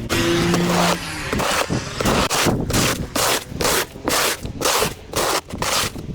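Snow shovel scraping snow off a sidewalk in quick repeated strokes, about two to three a second.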